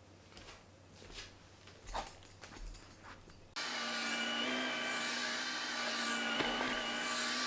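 A few faint light knocks, then a small electric motor switches on suddenly about halfway through and runs steadily with a whine.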